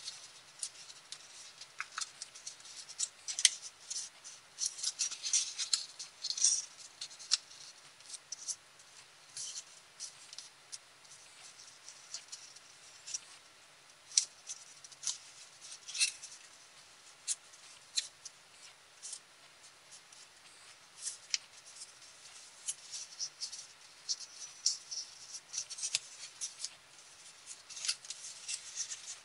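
Sheet of colored copy paper crinkling and crackling as it is folded and creased by hand, in irregular crisp rustles: busy at first and near the end, sparser in the middle.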